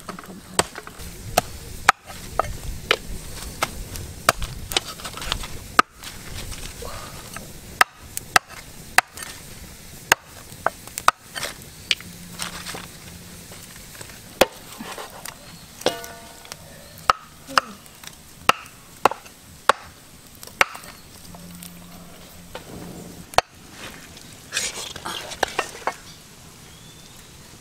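Knife chopping on a cutting board: sharp, irregularly spaced strikes, about one or two a second.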